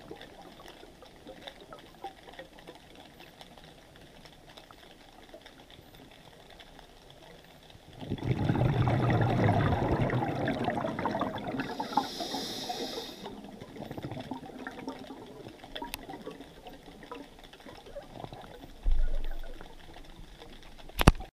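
Underwater sound: a quiet, steady crackling hiss, then about eight seconds in a loud bubbling gurgle of a diver's exhaled breath lasting a few seconds, with a brief high hiss after it. A short thump comes near the end.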